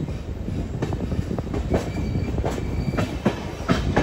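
Passenger train rolling slowly into a station: a steady rumble with irregular clacks and knocks from the wheels running over rail joints, and a faint thin wheel squeal in the middle.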